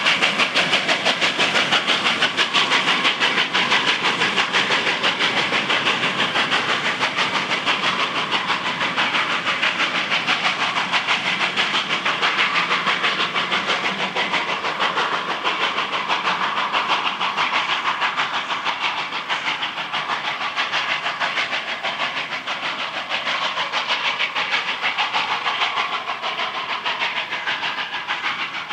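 SNCF 141.R.1244 Mikado 2-8-2 steam locomotive working a train, its exhaust beating in a rapid, even rhythm with steam hiss, growing gradually fainter toward the end.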